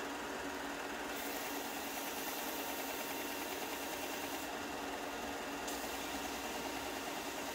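WEN 4-by-36-inch belt and 6-inch disc sander running steadily, its motor humming under the hiss of the moving belt, while a small piece of wood is held against the belt. The hiss brightens about a second in and shifts again later as the piece is worked.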